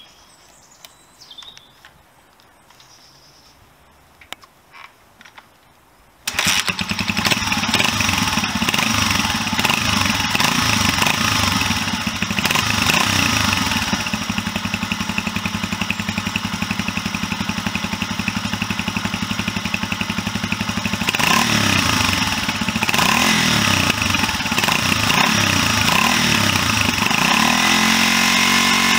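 Honda XL250S four-stroke single-cylinder motorcycle engine, freshly rebuilt, catching suddenly about six seconds in after a quiet start and then running loudly at idle. The revs rise and fall a few times in the second half before it settles to a steadier idle near the end.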